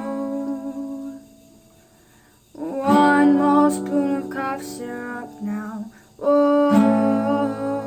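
Acoustic guitar playing the closing chords of a song: a chord struck and left to ring, then a near-quiet pause, then two more chords about four seconds apart, each ringing out.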